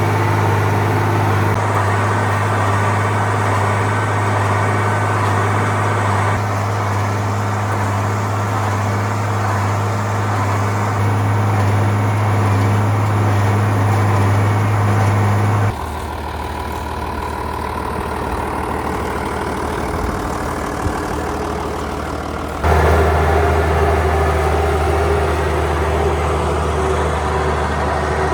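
Farm machinery engines running steadily through a string of cut shots, the engine note and loudness changing abruptly at each cut.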